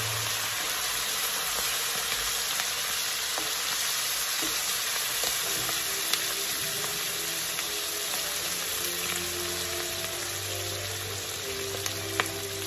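Rendered guanciale fat and freshly added tomato pulp sizzling steadily in a hot frying pan, with a couple of faint clicks.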